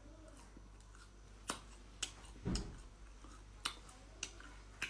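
Close-miked eating of dry, chewy beef jerky: about six sharp, crisp clicks and smacks spread over a few seconds, one with a dull thump about halfway through.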